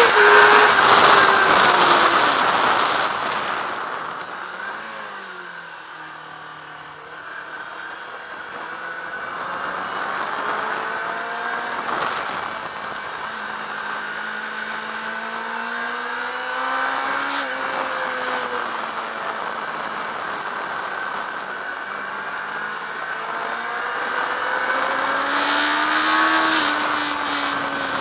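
Yamaha R6 inline-four engine heard onboard at speed, with wind rushing over the microphone. The revs start high, fall away a few seconds in, then climb again in steps as the bike accelerates.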